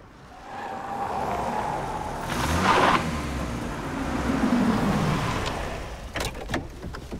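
Volkswagen police estate car driving up and slowing alongside, its engine and tyre noise swelling to a peak about three seconds in, then easing off. A few sharp clicks near the end.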